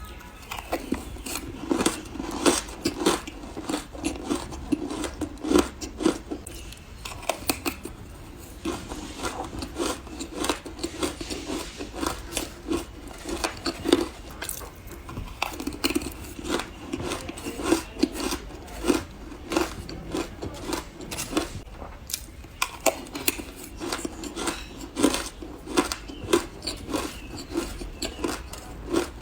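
Biting and chewing frozen green matcha ice: dense, crisp crunches, several a second, with short pauses between mouthfuls.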